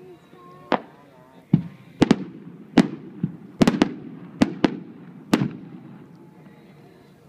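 Aerial firework shells bursting overhead: about ten sharp bangs in the first five and a half seconds, some coming in quick pairs, then the reports stop.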